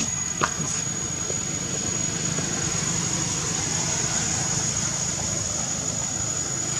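Outdoor ambience: a steady low rumble like a distant engine, under a thin, steady high-pitched insect drone. A single short tick comes about half a second in.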